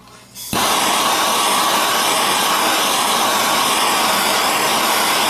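Handheld torch running with a steady, loud hiss that starts suddenly about half a second in. It is heating glue-lined heat-shrink tubing over a battery cable connection.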